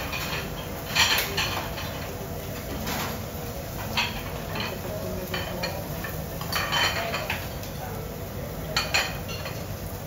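Metal utensils clinking and knocking against dishes in scattered strikes, about a second in, around three and four seconds, a cluster near the middle and another near the end, over steady background noise.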